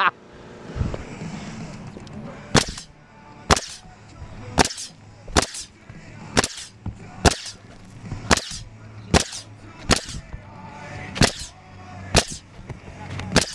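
Pneumatic coil roofing nailer firing nails into asphalt shingles: a sharp crack about once a second, about a dozen shots, starting about two and a half seconds in.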